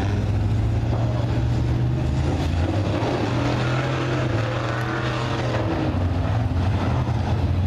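Dirt late-model race cars with GM 602 crate small-block V8 engines running at speed around the oval in hot laps. Their engines make a steady, loud drone that eases slightly midway as the cars swing through the far turn, then builds again.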